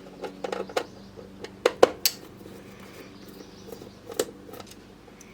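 Scattered small clicks and clinks of a screwdriver, loose screws and plastic parts being handled during disassembly of a boombox, a few sharp taps with the loudest about two seconds in.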